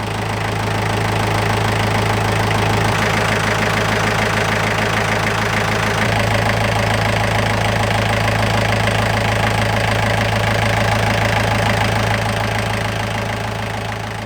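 A catamaran's inboard engine running steadily, with a low, even hum. It is running again after its burnt-out starter motor was rebuilt and refitted.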